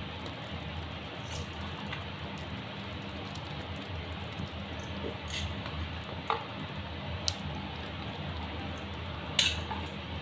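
Thick chickpea curry gravy simmering in a pan: a steady hiss over a low hum, with a handful of sharp pops, the loudest near the end.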